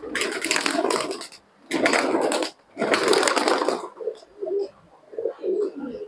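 Domestic pigeons' wings flapping in three loud bursts of clatter over the first four seconds, then several pigeons cooing.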